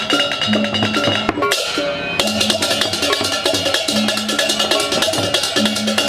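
Balinese gamelan playing a fast, dense rhythm of struck metal percussion and pitched gong notes. The lower parts break off for a moment about one and a half seconds in, then come back in.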